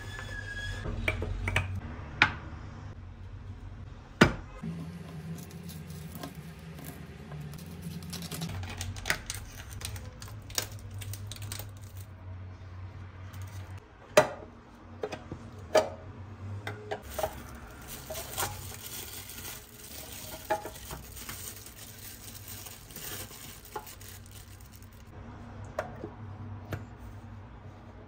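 Kitchen items being handled on a wooden cutting board: a glass jar, its lid and a plastic storage box set down and moved, giving scattered sharp knocks and clinks of glass and plastic, the loudest about four seconds in and near the middle. A low steady hum runs underneath.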